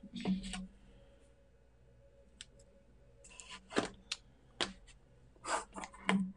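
A few scattered light clicks and taps of plastic ink-pad cases and craft supplies being handled on a wooden desk, the loudest a bit past the middle.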